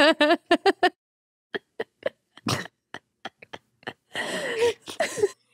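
Hard laughter: a quick run of pitched ha-ha-ha pulses that breaks up into short breathy gasps, then a longer wheezing, squealing laugh near the end.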